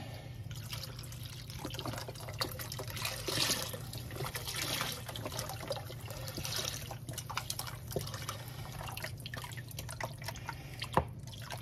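Chicken stock pouring from a carton into a slow cooker full of soup: a steady splashing trickle of liquid into liquid.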